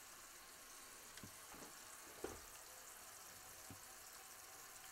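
Skillet of onion and sausage juices simmering with a faint, steady sizzle. A few light clicks of a measuring spoon and flour canister against a small dish come through, the clearest a little over two seconds in.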